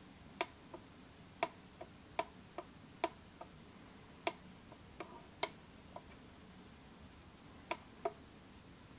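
Push buttons on a D30 digital valve positioner's keypad clicking as they are pressed and released to step through its menu: about fifteen small irregular clicks, often in pairs, with a pause before two last clicks near the end.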